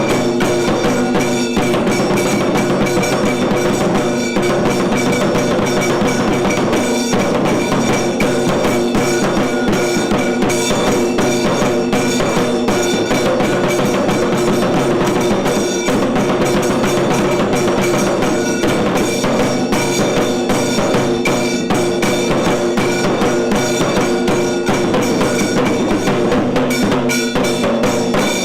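Tiru Kailaya Vadyam, a Tamil temple percussion ensemble, playing fast, continuous drumming over steady held ringing tones.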